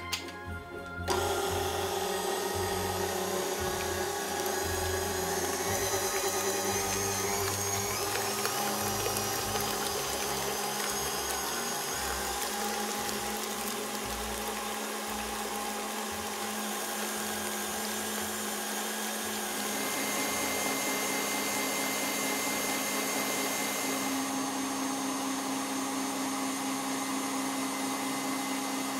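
KitchenAid stand mixer running with its wire whisk beating egg yolk and sugar in a glass bowl. The motor starts about a second in and runs steadily, its hum shifting in pitch a few times.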